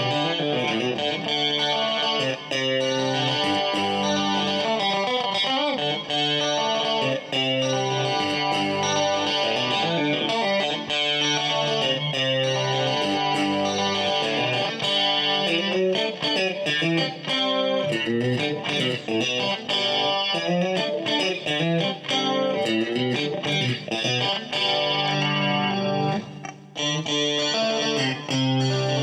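Morgan Legend Series Strat-style electric guitar, ash body and rosewood fingerboard, played on a clean tone: a continuous flow of notes and chords, with a brief break about 26 seconds in.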